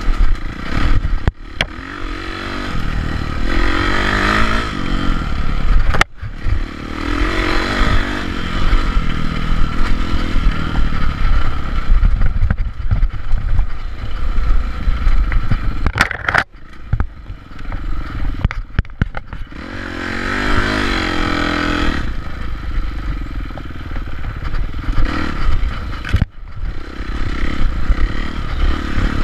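Dirt bike engine revving up and down as the throttle opens and closes on a rough wooded trail, its pitch rising and falling over and over. Knocks and rattling from the bike over the bumps, with several brief cut-offs as the throttle is chopped.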